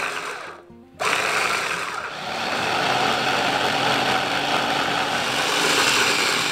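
Mitochiba electric food chopper running, its blades grinding shallots, garlic, ginger and red chillies with a little oil into a spice paste. It runs in a short burst that stops within the first second, then restarts about a second in and runs continuously.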